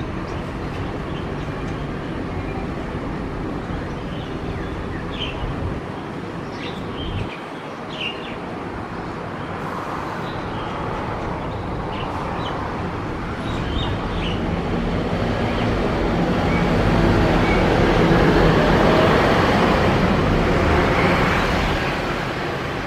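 Steady road traffic, with a heavy vehicle's engine swelling up and passing, loudest about three-quarters of the way through. Short, high bird calls come through now and then over the first half.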